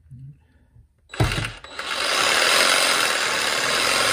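DeWalt 20V cordless reciprocating saw with a fine-tooth metal-cutting blade starting up with a knock about a second in, then running steadily as it saws through a PVC drain pipe.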